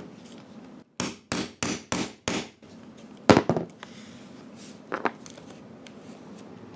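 Hammer striking a grommet-kit hole punch to punch a hole through a tarp onto the strike plate: five quick blows at about three a second, then a louder knock about a second later.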